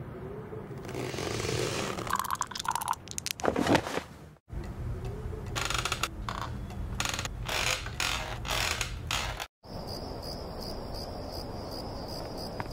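Cartoon sound effects in three short stretches broken by brief silences: scattered clicks and knocks over a low hum, then crickets chirping in a steady, even pulse over the last few seconds.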